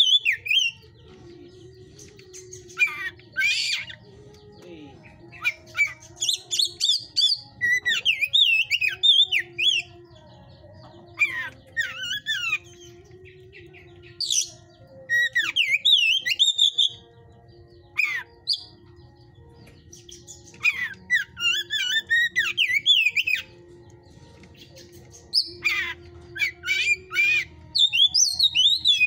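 Oriental magpie-robin (kacer) singing in loud bursts of rapid, varied whistled and warbling phrases, each a second or a few long, with short pauses between them. It is the hard-driven song of a bird in fired-up, 'hot' condition.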